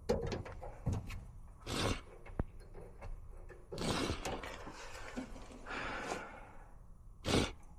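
Knocks and scraping clatter of metal parts being handled and refitted in an attic air handler, with several separate knocks and a couple of longer scrapes, the sharpest knock near the end.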